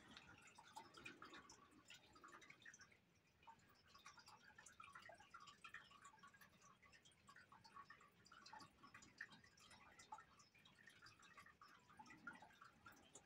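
Near silence with faint, scattered small ticks and taps: a paintbrush dabbing and stroking watercolour paint on paper.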